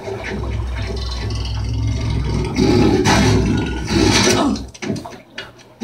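Film soundtrack played back over a Philips Fidelio E5 surround speaker system and picked up in the room: a deep low rumble builds, then two loud rushing surges about a second apart fade away near the end.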